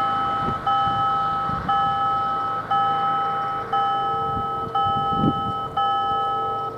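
Level crossing warning bell ringing with a steady rhythm, about one strike a second, each ringing tone fading before the next.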